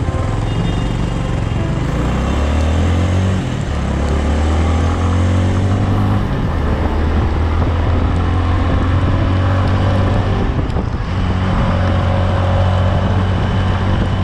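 Bajaj Avenger motorcycle's single-cylinder engine running as it rides, its note climbing with the throttle a couple of seconds in, dropping, then holding steady, over a steady hiss of wind and road noise.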